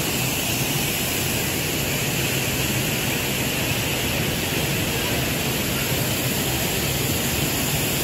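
Upper Düden Waterfall pouring into its pool: a steady, unbroken rush of falling water.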